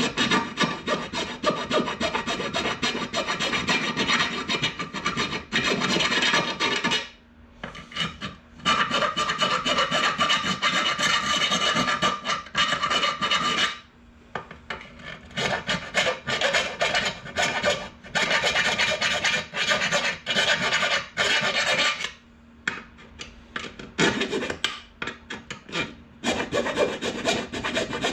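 Hand file scraping hard, stubborn material out of holes, in long runs of quick strokes broken by three short pauses.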